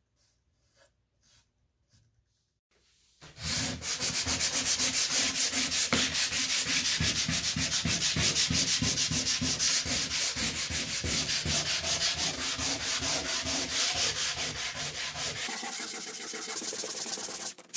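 Hand sanding a wooden tabletop with a sanding pad: loud, quick back-and-forth rubbing strokes that start about three seconds in and grow lighter near the end.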